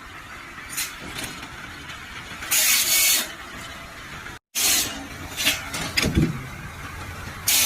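Sawmill machinery running, with several short bursts of hissing noise and a few clicks. The sound drops out for a moment about four and a half seconds in.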